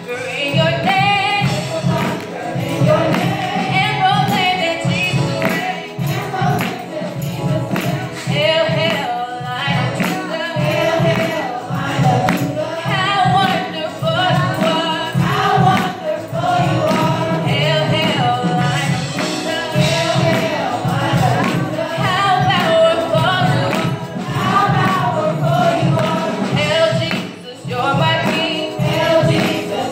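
Youth gospel choir singing together through microphones over a steady beat of percussion and low accompaniment.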